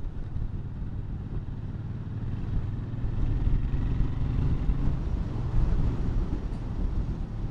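A low, steady motor-vehicle rumble that grows a little louder about three seconds in.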